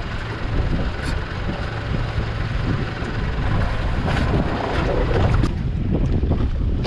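Steady wind buffeting the microphone aboard an offshore fishing boat, over the rush of the sea and the boat.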